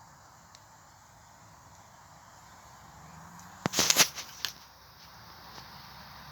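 Campfire crackling: a quick cluster of sharp cracks and pops about three and a half seconds in, over a faint steady hiss.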